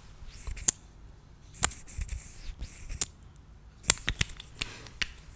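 Sharp, irregular clicks and taps of small plastic makeup packaging being handled, about one or two a second.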